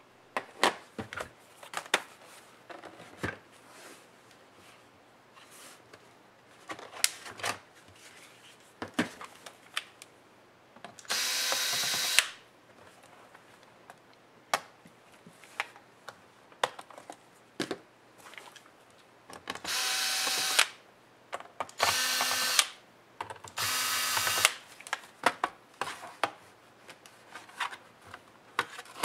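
Skil cordless drill-driver running in four short bursts of about a second each, one about eleven seconds in and three close together near twenty to twenty-four seconds, backing screws out of a laptop's plastic bottom cover. Between the runs come many sharp clicks and knocks of the plastic laptop case being handled.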